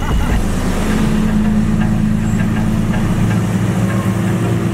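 Lamborghini Aventador 6.5-litre V12 engines idling at close range, a steady low drone. A slight rise in pitch comes near the end as one of them creeps forward.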